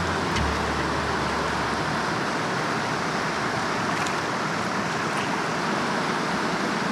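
Steady rush of a fast, rocky river riffle on the Upper Sacramento River, an even roar of water with no break. A low hum fades out about a second and a half in.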